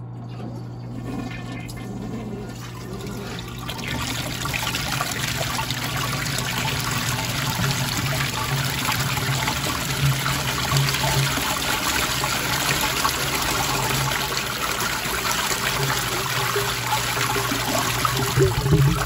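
Flush water from a 1986 American Standard Cadet toilet gushing out of a short PVC pipe into a plastic bin, building up over the first few seconds and then running strongly. Near the end come a few louder surges: the siphon breaking, as makeup air is drawn into the pipe to satisfy the vacuum end of the trapway.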